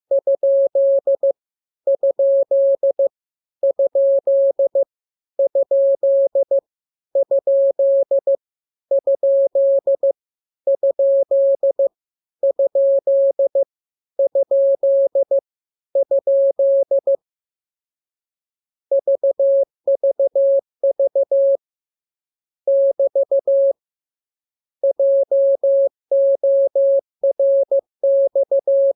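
Morse code sent as a single pitched tone of about 600 Hz, keyed on and off in dots and dashes. The first ten groups are alike and come at even spacing, one character repeated. After a pause of about two seconds, less regular runs of characters follow.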